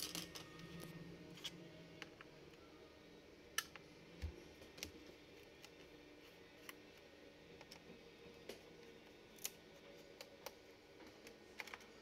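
Faint, scattered small clicks and taps of a screwdriver working the screw of a Lenovo ThinkPad T420s memory-bay cover and the plastic cover being lifted off, over near silence.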